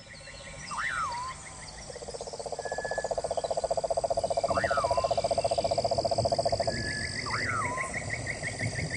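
Nature ambience of frogs and insects calling: a rapid pulsing trill, the loudest sound, starts about two seconds in and stops near the seven-second mark, over a steady high insect tone and rapid chirping. A short call that swoops up and falls back comes three times.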